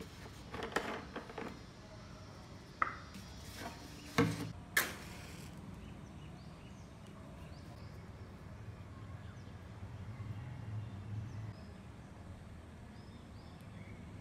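Handling noises on a tabletop: a few clicks and knocks in the first five seconds as a plastic container cap is twisted off and small objects are put down, the loudest two close together around four seconds in. After that, faint steady background hum with a few faint bird chirps.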